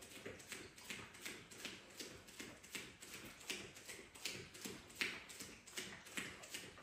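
A steady run of short, light taps, about three a second and slightly uneven, made during a boxing workout round; one sharper tap comes about five seconds in.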